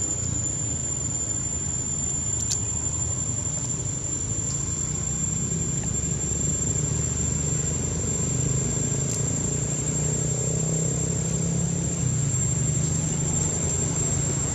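Steady outdoor ambience: a continuous high-pitched insect drone over a low steady rumble that swells slightly about halfway through.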